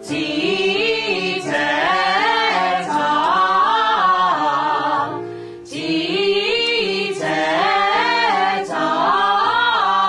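A group of voices singing a song in harmony, with no clear instrumental backing, in phrases broken by short pauses.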